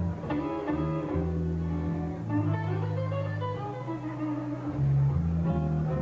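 Live blues band instrumental: a Les Paul-style electric guitar plays single-note lead lines over bass guitar notes that change about once a second.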